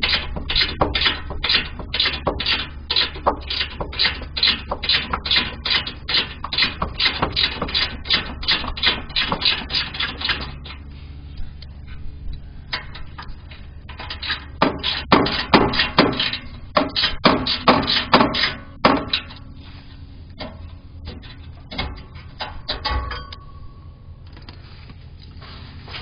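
Hand socket ratchet clicking in quick rhythmic runs as skid-plate bolts are backed out, about three clicks a second for the first ten seconds and again for a few seconds past the middle. A few scattered metallic knocks and a brief ring follow near the end.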